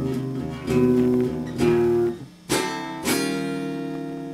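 Telecaster-style electric guitar playing a slow blues riff: picked notes and chords struck about once a second, a short break a little past halfway, then a chord left ringing.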